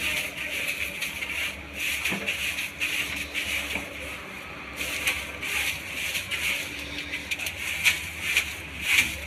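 Scraping and rubbing off caked chili powder inside an oil-mixing machine's drum and metal paddles: irregular strokes over a low steady hum.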